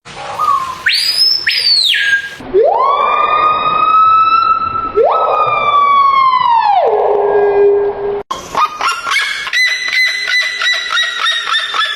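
A bird giving strange siren-like calls: a short high whistle, then two long wails that rise and slowly fall. After an abrupt break comes a fast, steady run of pulsed, rattling notes.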